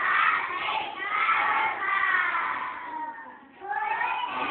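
A group of young children's voices chanting together in loud phrases about a second long, with a short break about three and a half seconds in.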